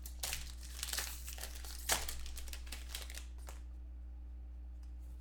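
Clear plastic card-pack wrapper crinkled and pulled open by hand: a run of crackles and rustles, loudest about two seconds in, that dies away a little after three seconds. A steady low electrical hum runs underneath.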